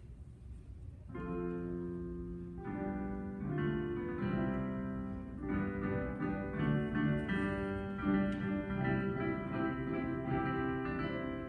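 Instrumental music with a piano sound, starting about a second in and moving through short notes and chords in quick succession.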